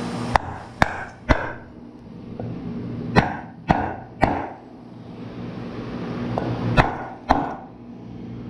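Claw hammer striking a wooden board laid over a mower wheel hub, driving a new grease seal in flat above the wheel bearing. The blows come in three groups of three, about half a second apart.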